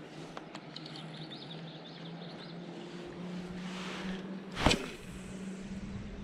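A small bird chirps in a quick series of short high notes over a steady low hum. A little past halfway a brief rush of noise leads into a single sharp knock, the loudest sound.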